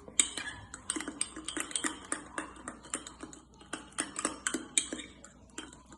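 A spoon clicking against a bowl as a thick egg-and-flour batter is stirred, in quick repeated ticks about four or five a second.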